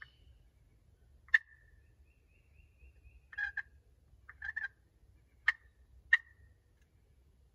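Turkey clucks and yelps: sharp single notes about a second in and twice near the end, with two short runs of quick notes in the middle.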